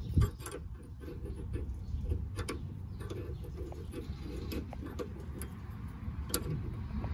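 Scattered light metallic clicks and taps as the flat steel adapter of an inner tie rod removal tool is worked around the inner tie rod joint, with a knock just after the start and a sharper click near the end.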